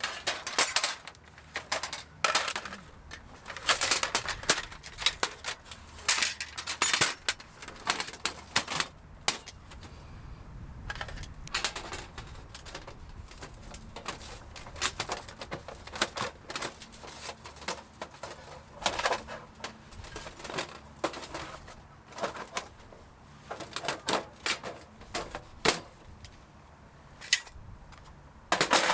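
Irregular clusters of sharp clicks and light knocks, as of small hard objects being handled, over a faint low rumble.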